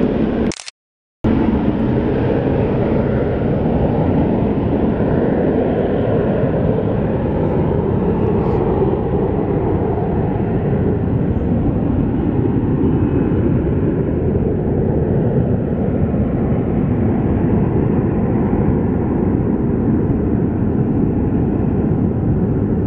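Boeing 727's three Pratt & Whitney JT8D turbofans at takeoff power as the jet climbs away: a loud, steady jet roar whose high end slowly fades as it recedes. A brief silent dropout about a second in.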